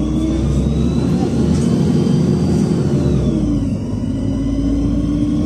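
Inside the cabin of a LiAZ 5292.67 city bus on the move, its YaMZ-53624 compressed-natural-gas inline-six runs through a ZF automatic gearbox. The engine note and a high driveline whine rise with speed, then drop away about three seconds in before building again.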